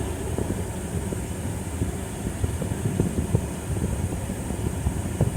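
A car driving, heard from inside the cabin: a steady low rumble of engine and road noise, with a faint steady hiss above it.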